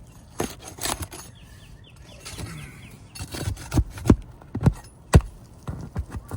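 Hand-tool work on asphalt roof shingles: scraping and rustling, then a run of sharp knocks, the loudest about five seconds in.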